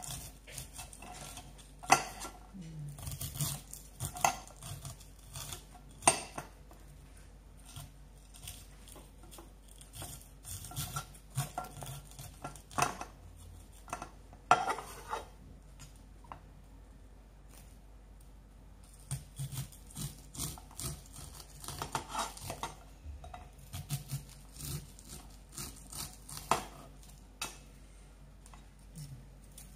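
Chef's knife cutting the kernels off an upright ear of fresh sweet corn: repeated downward scraping strokes along the cob, with kernels dropping into the container and a few louder sharp knocks scattered through.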